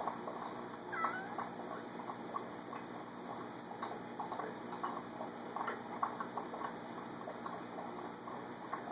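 A cat gives a short meow about a second in, over the steady trickling and ticking of aquarium water.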